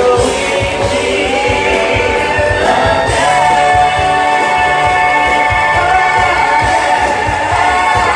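Several singers with microphones singing together over amplified backing music with a steady beat, the voices holding long notes from about three seconds in.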